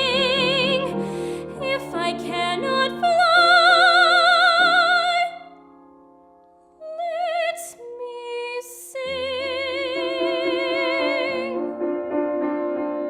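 A young female voice singing in a musical-theatre soprano style with wide vibrato on long held notes, over piano accompaniment. The singing breaks off briefly about five seconds in, comes back with short notes and then a long held note, and near the end the piano carries on alone.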